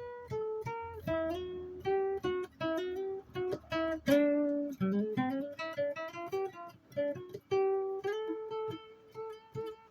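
Solo acoustic guitar picking a melody of single notes, a few each second, each note ringing briefly and fading. A louder note rings longer a little past the middle.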